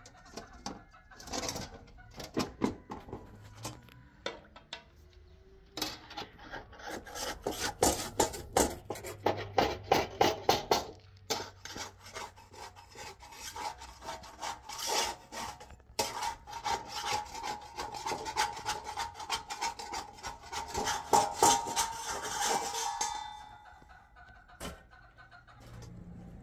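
Metal spatula scraping and tapping across an iron flatbread griddle in quick, repeated strokes. There are a few scrapes at first, then a long run of rapid scraping that stops shortly before the end.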